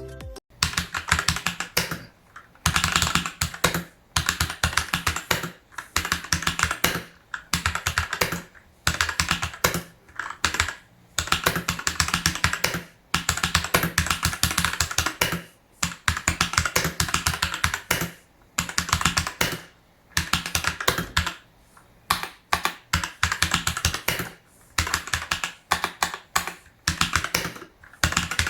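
Fantech MK853 mechanical keyboard being typed on: rapid runs of key clicks in bursts of a second or two, broken by short pauses.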